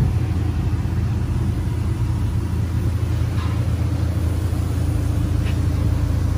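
Volkswagen Golf GTI Mk6's 2.0-litre turbocharged four-cylinder idling, a steady low rumble through a custom full exhaust with its Valvetronic valve closed.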